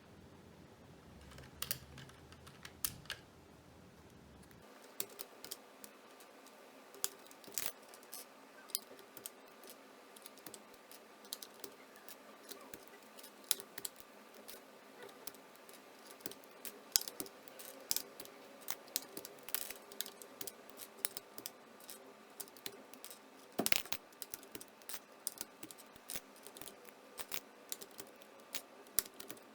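Irregular sharp plastic clicks and snaps, several a second, from a Keychron K1 keyboard being worked on during cleaning. Whether they come from keys being pressed or keycaps being pulled off cannot be told.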